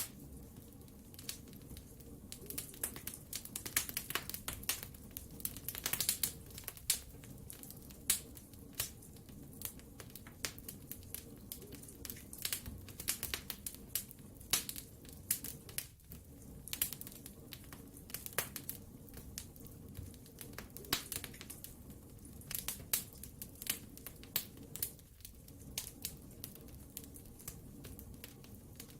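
Wood fire burning in a fireplace, crackling and popping at irregular intervals over a low steady rumble of the flames.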